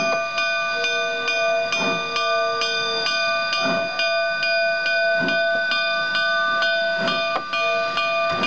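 Steam locomotive bell on a K-36 narrow-gauge engine ringing steadily, about two and a half strokes a second, each stroke ringing on. It is rung as the engine gets ready to move off. Softer, lower puffs come every second and a half or two.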